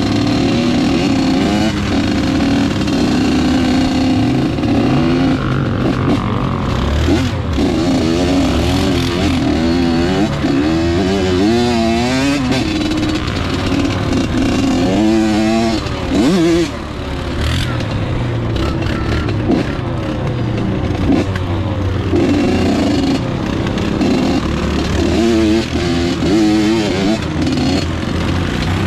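Several off-road motorcycle or ATV engines running and revving together, their pitches rising and falling as they overlap.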